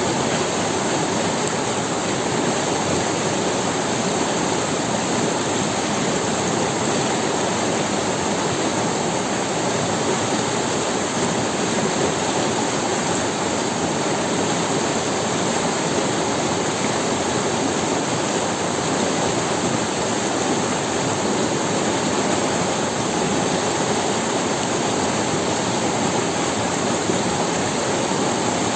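River water rushing over stones, a steady, unbroken rush of flowing water.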